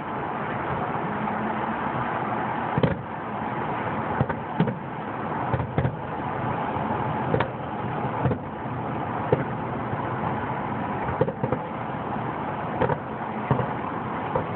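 Fireworks shells bursting at a distance: about fifteen sharp bangs at irregular intervals, the loudest about three seconds in, over a steady background rush.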